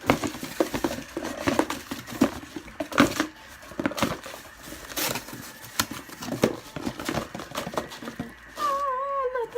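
Slime being handled and squished in its plastic container: a dense, irregular run of sticky clicks, pops and crackles. A short hummed voice sound comes near the end.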